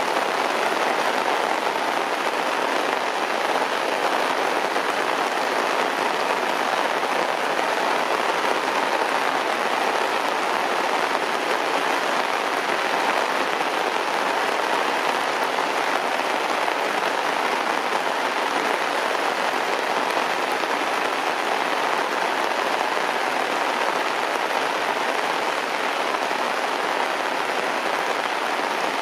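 Heavy rain falling steadily, an even, unbroken hiss of drops.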